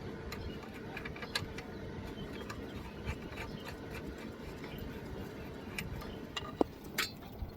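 Scattered light metallic clicks and taps of hand tools working on the engine's belt tensioner, over a steady low rumble. Two sharper clicks come near the end.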